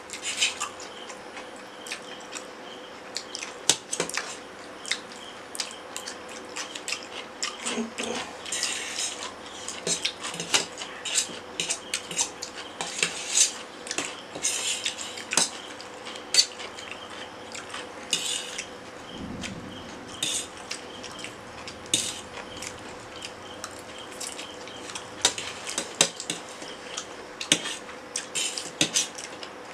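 Forks clinking and scraping on stainless steel plates, many sharp, irregular clinks as two people eat noodles.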